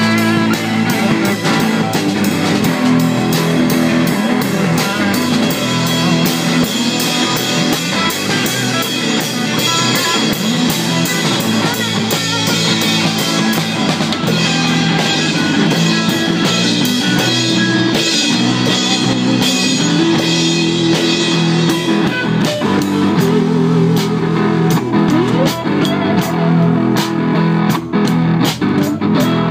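Guitar-led rock music played on electric guitar with a drum kit, running steadily without a break.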